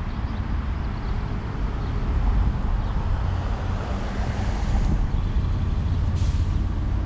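Steady low outdoor rumble, with a brief hiss about six seconds in.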